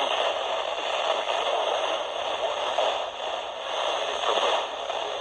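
Weather radio receiver hissing with static, the broadcast voice faint and buried in the noise: poor, weak reception of the NOAA Weather Radio station.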